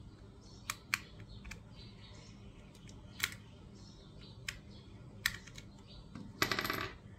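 Plastic jump rope handles and end caps being handled, giving scattered sharp clicks and taps, then a short, louder run of rapid rattling clicks near the end.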